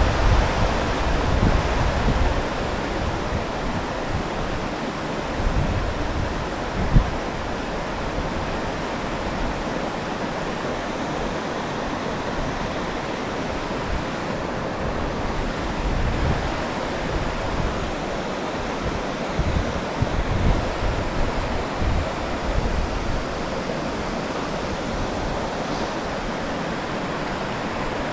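Steady rushing of river water, with gusts of wind buffeting the microphone now and then and one brief knock about seven seconds in.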